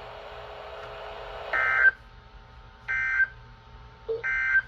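Three short, identical digital data bursts about a second apart over faint radio hiss and hum: the SAME end-of-message tones of a NOAA Weather Radio broadcast, which close a severe thunderstorm warning.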